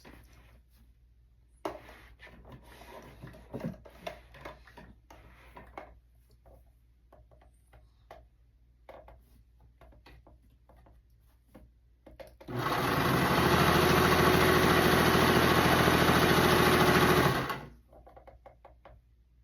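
Thrifted electric sewing machine running steadily at speed for about five seconds, sewing its first stitches, starting about twelve seconds in and stopping abruptly. Before it, faint clicks and handling sounds as the machine and fabric are set up.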